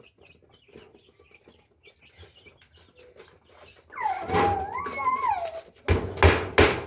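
Faint short chirps, then one drawn-out animal call that rises and falls in pitch for about a second and a half, followed near the end by loud sharp knocks about three a second.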